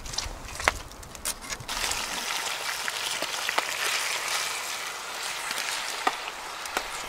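Roast beef and vegetables in a cast-iron Dutch oven over a campfire: a few sharp crackles, then, about two seconds in, a steady sizzling hiss flecked with small crackles.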